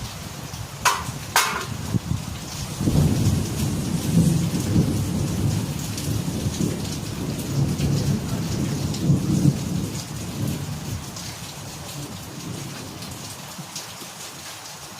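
Steady rain with a thunderclap: two sharp cracks about a second in, then a low rolling rumble that swells and slowly fades over the next eight seconds or so.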